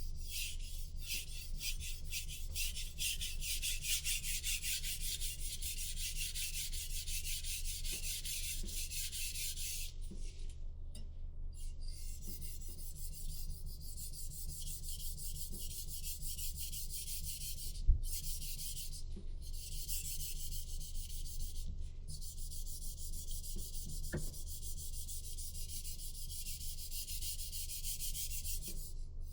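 Knife blade stroked over and over along a whetstone: a steady scraping hiss with brief pauses a few times, over a low steady hum. A single sharp knock a little past halfway is the loudest sound.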